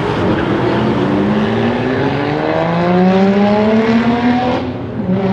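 ABT Audi RSQ8-R's 4.0-litre twin-turbo V8 accelerating hard, its note rising steadily in pitch for about three and a half seconds, then falling away shortly before the end.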